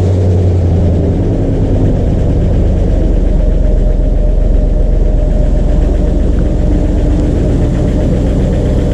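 Freshly rebuilt 4.0-litre GEMS V8 of a Land Rover Defender running just after its first start, with a new camshaft and lifters still to break in. The high starting idle settles lower about two seconds in, and the engine then runs steadily.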